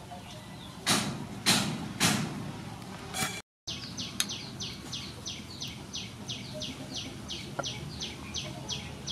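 Three cleaver chops through sliced sea snail meat onto a wooden chopping board, about half a second apart, near the start. After a cut, a bird calls a fast run of short, high, falling chirps, about three a second.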